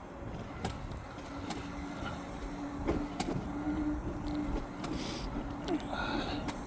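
Car interior while driving: steady road and engine rumble with a hum that comes and goes, a few sharp clicks and knocks, and a brief hiss about five seconds in.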